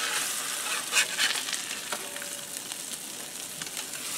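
Bass fillets sizzling in butter in a cast-iron pan over a wood fire, with a few short scrapes of a spatula against the pan as the fillets are worked, the sharpest about a second in.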